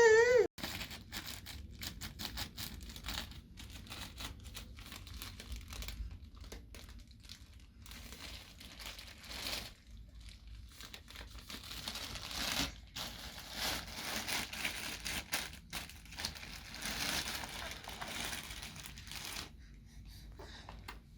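A baby's short, high, rising squeal right at the start, then a long run of irregular crinkling and rustling, as of paper or plastic being crumpled and handled, busiest in the second half and dying down near the end.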